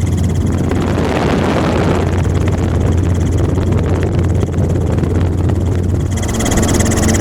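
Helicopter running in flight: a steady low rotor hum with a high turbine whine that fades out about half a second in and returns near the end.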